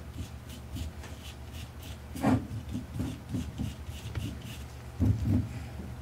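Gloved fingertip rubbing furnace mortar into a coil of nichrome wire: a run of short scratchy strokes over the ridged windings, about three or four a second. Two louder knocks come about two seconds in and again near five seconds.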